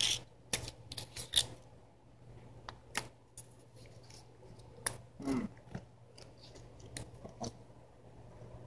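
Handling noise: scattered light clicks and rustles as the small parts and wrapping of a chocolate surprise egg and its toy are handled, with a brief hum-like vocal sound about five seconds in.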